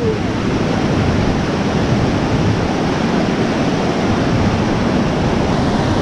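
Wahkeena Creek rushing and splashing over rocks below Wahkeena Falls, a steady, unbroken sound of white water.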